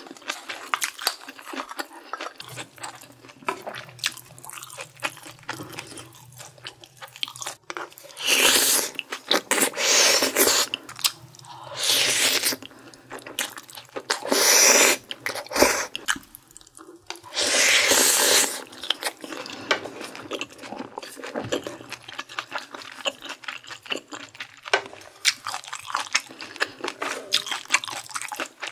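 Close-miked eating of bulgogi stew with rice: wet chewing and mouth clicks throughout, broken by about five loud, second-long slurps of glass noodles in the middle stretch, with a wooden spoon and chopsticks scraping the plate.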